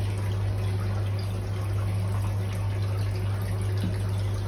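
Water from a filter's return pipe pouring and trickling steadily into a turtle tub, over a steady low hum.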